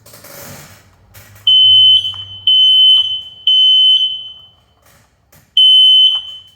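A combination smoke and carbon monoxide detector sounding its alarm: loud, piercing high beeps about two a second, starting about a second and a half in. The beeps pause for about a second, then start again near the end. A short rustle comes before the first beep.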